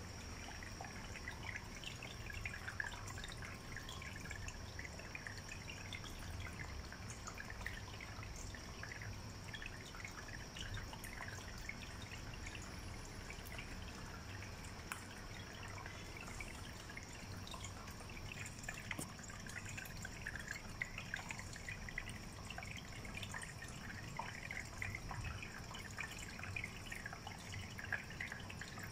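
Water trickling and dripping in an electric pet drinking fountain, a steady patter of small drips.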